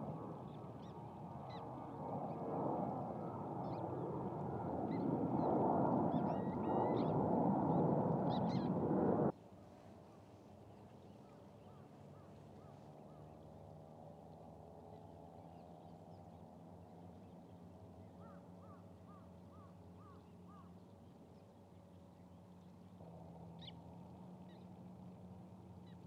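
A flock of common shelducks calling in a dense, swelling chorus with sharp high calls scattered over it, which stops abruptly about nine seconds in. After that the background is much quieter, with a quick run of about six repeated calls and a single high call near the end.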